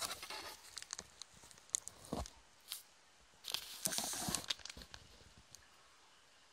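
Handling noise from the recording device being moved and rubbed by hand: scattered clicks and scrapes, with a burst right at the start and a longer rustling scrape about three and a half seconds in.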